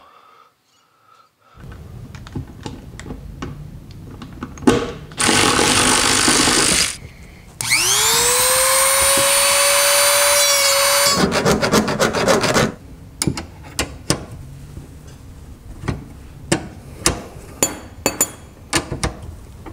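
A small handheld rotary tool with a cutoff wheel spins up with a rising whine to a steady high pitch and cuts through metal tubing, then stops. After that come scattered sharp clicks and knocks of a wrench working a tube fitting.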